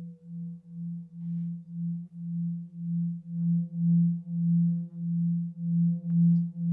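Tibetan singing bowl with a glass of water standing inside it, sung by circling the rim. Its deep hum pulses about twice a second and swells louder as it builds.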